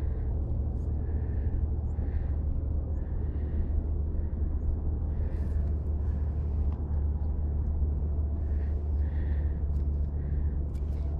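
Steady low rumble of outdoor background noise, with faint soft sounds now and then.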